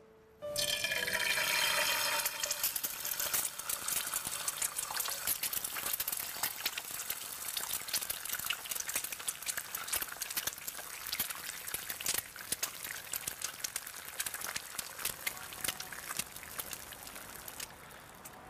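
Running, splashing water: a steady hiss full of small splashes that starts suddenly and cuts off abruptly near the end.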